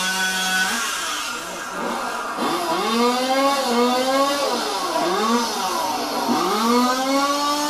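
Modified two-stroke competition chainsaw running at high revs through a log. Its pitch sags under load and climbs back several times as the chain bites and clears the cut.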